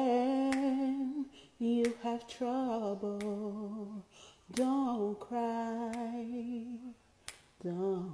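A woman singing a slow gospel melody a cappella, in long held notes with vibrato, several phrases with short breaths between them.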